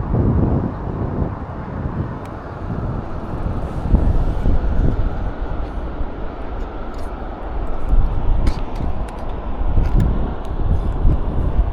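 Wind buffeting the microphone: an uneven low rumble, with a few faint sharp clicks in the second half.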